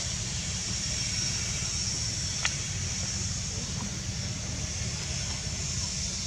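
Steady outdoor background noise: an even high hiss over a low rumble, with one short click about two and a half seconds in.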